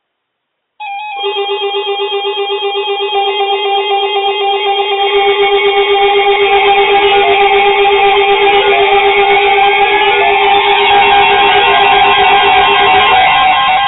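Instrumental music, a steady repeating melodic pattern that starts abruptly about a second in, with a few rising sliding notes in the second half.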